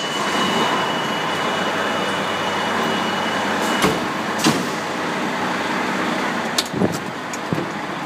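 Fire engine's diesel engine running steadily, with a few sharp clicks and knocks about four and seven seconds in.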